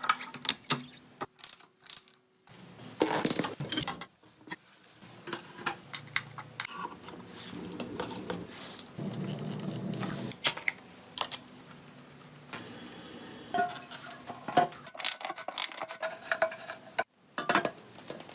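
Workshop tool sounds on motorcycle parts: irregular clicks, knocks and ratchet-like clatter. A few stretches of rasping or scraping come about three seconds in and again around eight to ten seconds.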